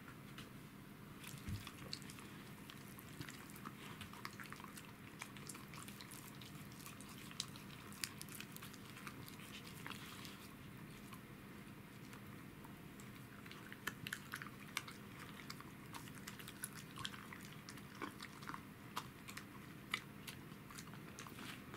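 Pembroke Welsh corgi chewing and crunching pieces of deer bone, with irregular crunches and clicks in short clusters.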